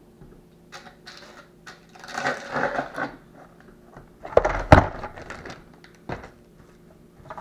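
Chainsaw parts handled on a wooden table: rustling about two seconds in, then a loud clatter of several sharp knocks near the middle as a part is set down, and one more knock a little later.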